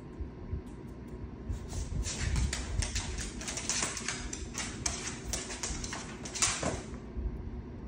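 Dog claws clicking and scratching on a hard wood-look floor as a puppy and an older dog move about and play. The rapid clicks start about a second and a half in and stop near the end, with a few dull thumps among them.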